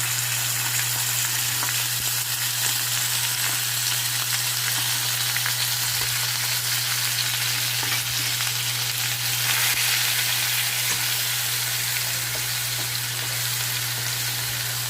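Onion-tomato paste sizzling steadily as it fries in hot oil over a tempering of cumin and whole spices, being stirred in the pan, with a steady low hum underneath.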